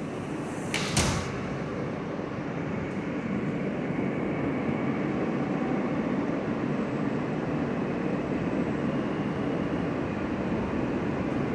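NYC subway R160 car running as it pulls out of an elevated station, a steady rumble of wheels and motors that grows louder as the train picks up speed. A single sharp thump about a second in.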